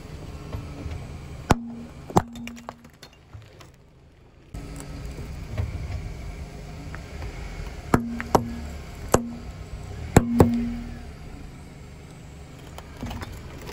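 A car tyre pressing down on a chrome-plated metal water tap on asphalt: sharp metallic cracks and knocks as it is squeezed, twice early on and then five in quick succession later, most followed by a brief ringing tone, over a low rumble from the car.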